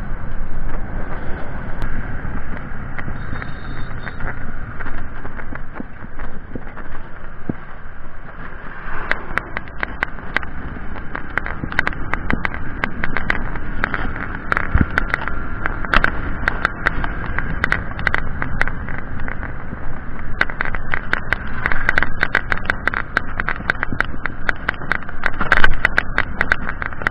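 Motorcycle on the move as heard by an action camera: a steady mix of engine, road and wind noise, with frequent sharp clicks and crackles from about nine seconds in.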